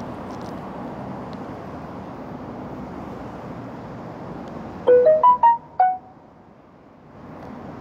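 A short electronic melody of five quick, piano-like notes at changing pitches, about five seconds in, over steady background noise. The background noise dips briefly right after the melody.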